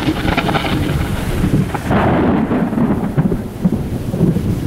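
Strong gusty wind buffeting the microphone: a loud, irregular low rumble, with a rustling hiss over it for the first two seconds or so.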